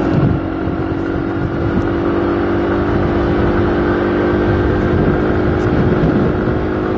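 Motor vehicle running steadily on the move, its engine giving an even hum over road and wind noise.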